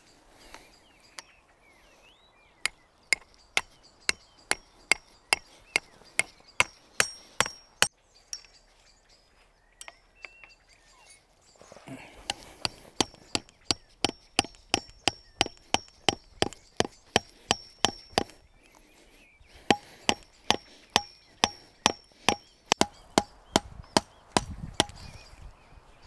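Hammer blows on metal in three quick runs, about two to three blows a second with short pauses between, each blow leaving a short high metallic ring.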